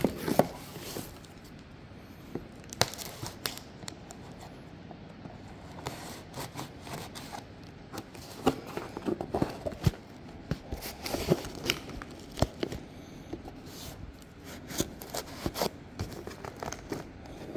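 Plastic packing tape being picked at and peeled off a cardboard box, with irregular crackling, tearing and crinkling of the tape and scraping on the cardboard.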